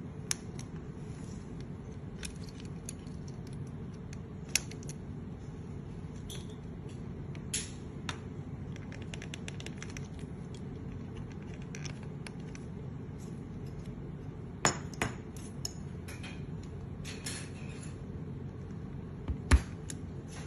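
Sharp clicks and taps of a small tool and hard plastic parts as a plastic robot figure's leg shell is pried and worked by hand, scattered through, with a quick cluster about three quarters in and the loudest click near the end. A steady low hum runs underneath.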